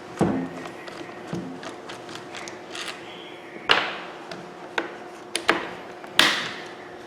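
Clicks and knocks of screwdriver work and loose metal and plastic parts as screws are taken out of a Bosch 11255VSR hammer drill's housing. The two loudest knocks come about four and six seconds in, each ringing briefly.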